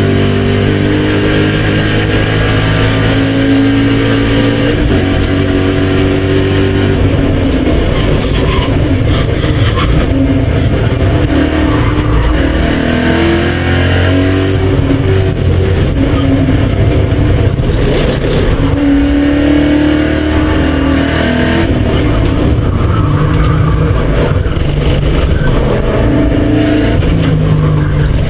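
BMW E39 M5's 4.9-litre S62 V8 being driven hard on a race track, its pitch repeatedly climbing under acceleration and dropping back on gear changes and braking.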